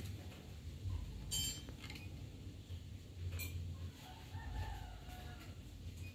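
A rooster crows once, faintly, about four seconds in, a drawn-out call of about a second. A brief high, sharp sound comes about a second in and a short tap near the middle, over a steady low rumble.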